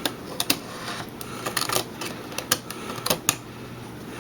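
Irregular small, sharp clicks and taps, about a dozen, from the parts of an Olympus SP-600UZ digital camera being handled and fitted during reassembly.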